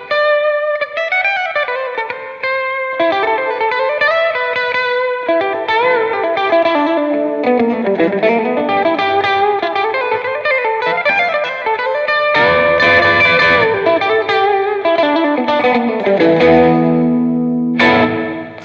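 Fender Stratocaster Elite electric guitar playing a melodic lead line with bent notes and vibrato, closing on a final struck chord that dies away near the end.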